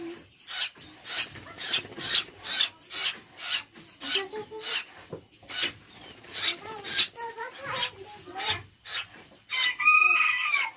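Rooster clucking over a rasping scrape repeated about twice a second, then crowing loudly near the end.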